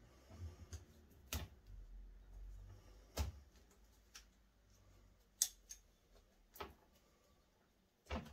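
Irregular sharp clicks and snaps, about nine over several seconds, as bonsai pliers grip and snip at the bare dead apex of a white spruce bonsai while it is being worked into a jin.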